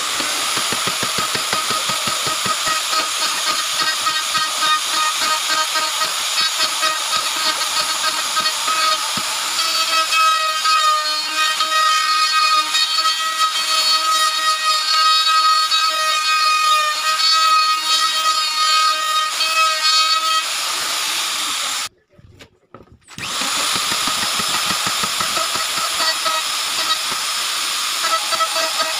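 Electric plunge router running at full speed with a steady high whine as it cuts along a wooden cabinet door frame. The sound drops out for about a second roughly three-quarters of the way through, then the router runs again.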